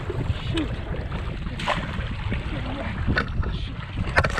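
Wind rumbling on the microphone over water splashing beside a kayak, as a hooked king salmon thrashes at the surface next to a landing net. A few short, sharp splashes or knocks stand out, with a cluster near the end.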